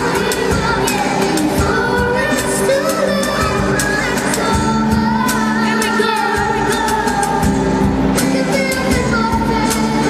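Live song by a children's band: a girl singing the lead into a microphone over guitars, with a regular percussion beat.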